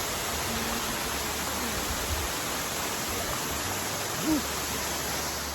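Waterfall rushing in a steady, dense roar of falling water. About four seconds in comes a brief, short rising-and-falling sound.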